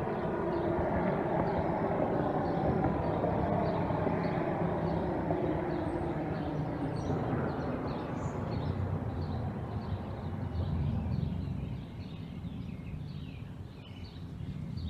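A road vehicle drives past, its engine and tyre sound slowly falling in pitch and fading away. A steady series of short high chirps, about three a second, sounds behind it.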